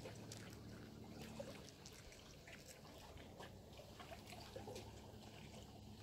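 Faint, irregular small ticks and crackles of a chipmunk nibbling and husking sunflower seeds from a hand, over a faint steady low hum.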